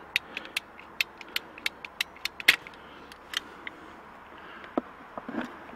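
PVC tubing cutter clicking about four times a second as its handle is squeezed to cut through half-inch PVC pipe, with one louder snap about two and a half seconds in. A few faint clicks follow near the end.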